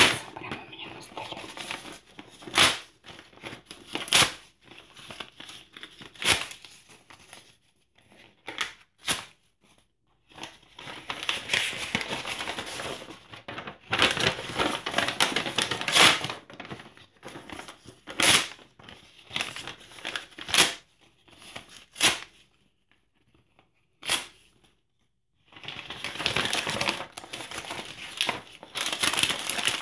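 Paper crinkling and tearing: sheets of newspaper and paper documents being handled and ripped by hand, with sharp short rips every couple of seconds between stretches of rustling and crumpling. It goes briefly quiet about three quarters of the way through.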